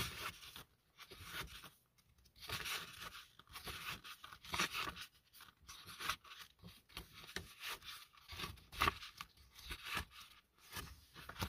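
Pages of a paper photobook being turned one after another, with irregular rustling swishes as each sheet flips over.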